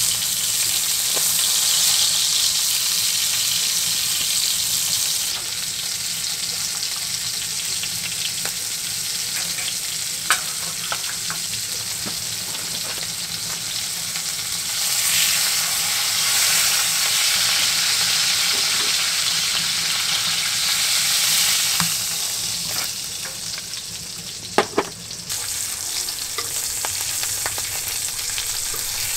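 Food sizzling in a hot pan: a steady frying hiss that swells and eases, with a sharp click about ten seconds in and another near the end.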